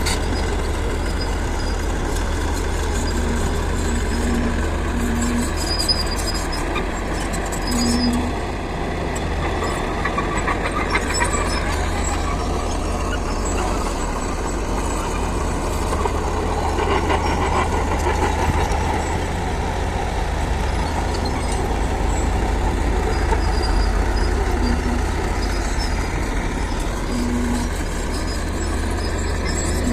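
Heavy earthmoving machine's diesel engine running steadily with a low rumble, with a few short, low beeps now and then.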